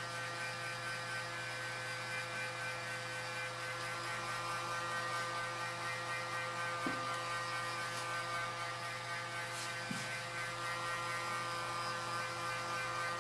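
Handheld electric heat gun running steadily, its fan motor humming under a rush of hot air, drying wet paint on a wooden box lid.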